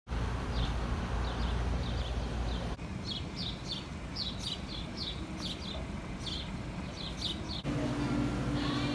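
A small bird chirping over and over in short, high notes, about twice a second, over a low steady outdoor rumble. Near the end this gives way to indoor room tone with a steady hum.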